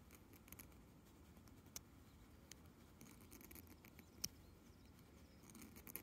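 Near silence with a few faint, sharp clicks, the loudest a little past four seconds in: small handling clicks of deer-bone tweezers being worked against skin.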